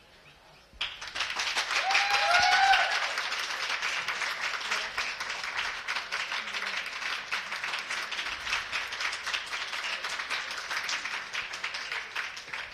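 Ringside crowd breaking into applause about a second in and clapping steadily on, with a short whooping cheer just after it starts.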